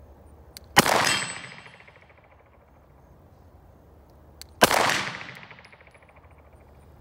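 Two 9mm pistol shots from a Glock 45 MOS, about four seconds apart, each echoing and dying away over about a second. A faint high ring follows the first shot.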